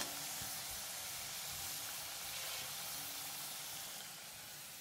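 Potato fingers deep-frying in hot oil in an iron kadai: a steady sizzle that softens a little near the end.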